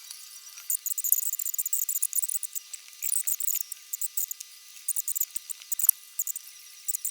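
Tiny screws being driven into a reMarkable 2 tablet's thin frame with a precision screwdriver: short, high, scratchy clicks and squeaks in irregular clusters.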